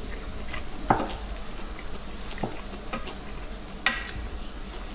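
Chopsticks tapping and scraping in a pan or dish: four or five light clicks, the sharpest about four seconds in, over a faint steady hiss.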